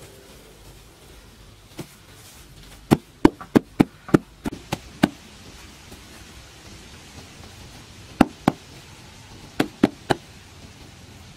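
Hands patting and slapping grass turf down onto bare earth, a series of sharp knocks: a quick run of about eight, then two more, then three near the end.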